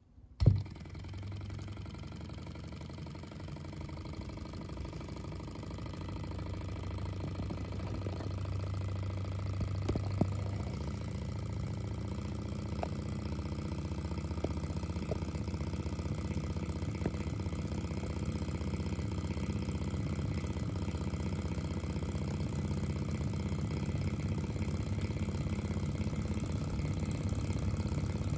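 Small alcohol-lamp-heated model Stirling engine started with a flick of its flywheel: a sharp click about half a second in, then the engine running steadily, growing louder over the first ten seconds or so and then holding.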